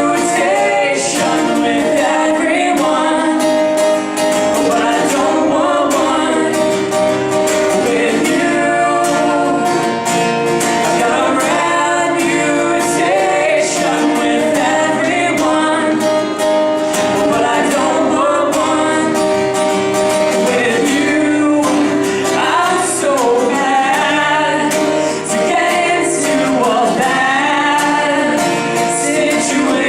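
A band playing a song: a singer over guitar accompaniment, steady throughout.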